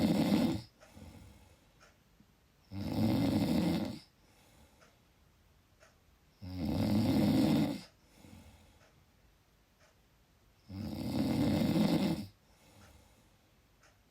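Loud snoring: three long, rasping snores about four seconds apart, plus the tail of another right at the start, with a faint breath between each.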